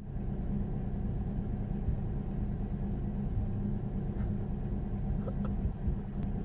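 Low, steady rumble of a car, as heard from a stopped or slowly moving vehicle.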